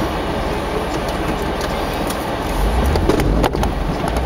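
Jeep Wrangler JK Unlimited engine running as the Jeep creeps forward through deep snow. The low rumble picks up about two and a half seconds in, and a few sharp knocks follow about a second later.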